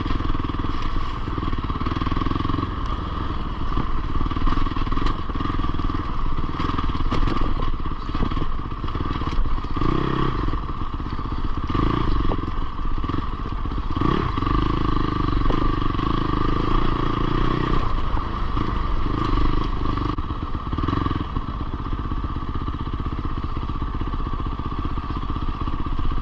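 Fantic Caballero Rally 500's single-cylinder engine running as the motorcycle is ridden off-road, its engine speed rising and falling with the throttle, most noticeably about ten and fourteen seconds in.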